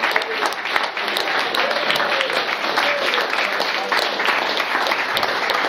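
Audience applauding at the end of a song, many hands clapping densely, with some voices over it.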